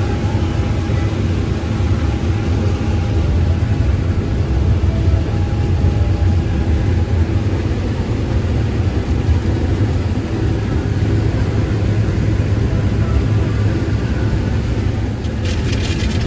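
Case IH 8120 combine running steadily under harvest load, a deep continuous engine and machine hum, with a few sharp clicks near the end.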